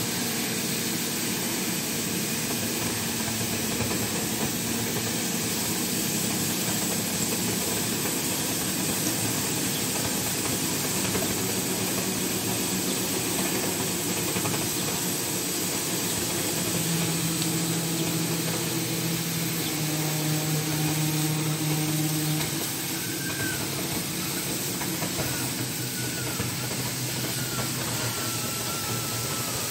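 CNC oxy-fuel cutting torch blowing a steady hiss as its oxygen jet burns a kerf through thick steel plate. A lower machine hum underneath changes pitch a few times in the second half.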